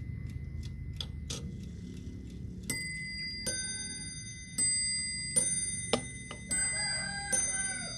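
Franz Hermle mantel clock striking the hour on its bell: six ringing strikes in three evenly spaced pairs, each dying away slowly. A couple of light clicks come first, as its hands are turned to the hour.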